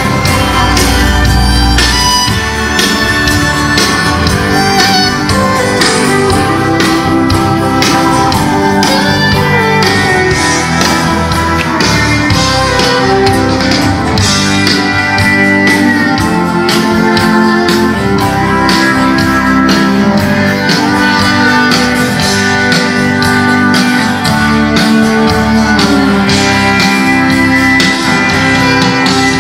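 A band playing music, with guitars to the fore over drums.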